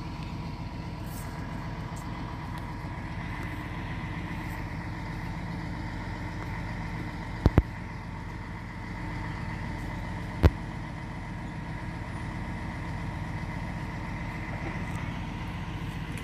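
Truck-mounted crane's engine running steadily as it lowers the deep-well pump into the borehole. A quick double knock comes about seven and a half seconds in, and another sharp knock about three seconds later.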